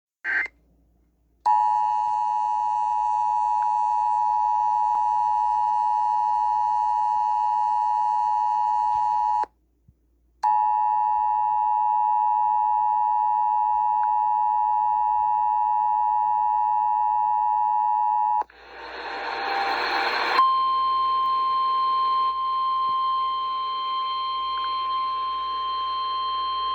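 Emergency Alert System alert tones heard through a radio: a short chirp, then the two-tone attention signal sounding steadily for about eight seconds, a one-second break, and another eight seconds of it. After a burst of static lasting about two seconds, a single steady alarm tone starts and holds. This is the weather-radio warning tone that comes before the spoken severe thunderstorm warning.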